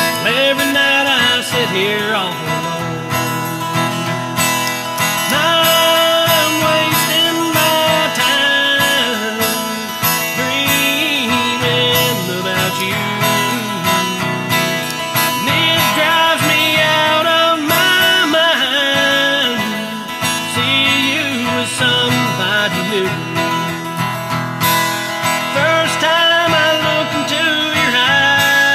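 Country music led by acoustic guitar, playing continuously.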